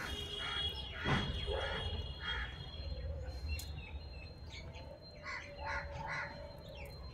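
Faint bird calls, short repeated calls in two groups, about two seconds in and again between five and six seconds in. A single brief knock sounds about a second in.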